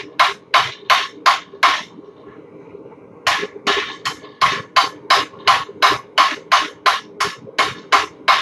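Blacksmith's hammer striking hot steel on an anvil in a steady rhythm of about three blows a second, each blow ringing. The blows pause for about a second and a half near the two-second mark, then resume. A steady hum runs underneath.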